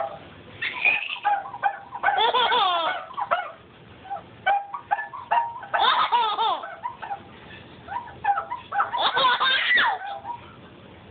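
Small child laughing hard in repeated bouts, with short squeaky sounds between them. The squeaks are what set off the laughter.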